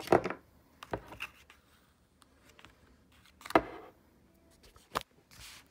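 Handling noise from a plastic dinosaur toy figure being moved about and set against the paper pages of an open book: a few soft knocks and paper rustles, loudest at the start and about three and a half seconds in, with a sharper click near the end.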